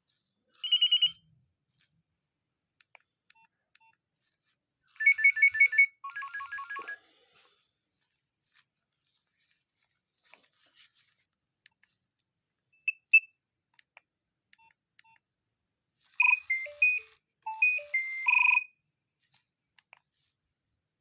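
Nokia 3100 mobile phone playing short snatches of electronic ringtones and alert tones, one after another with pauses between: a brief chirp about a second in, a fast warbling trill around five to seven seconds, two short beeps a few seconds later, and a short beeping melody near the end.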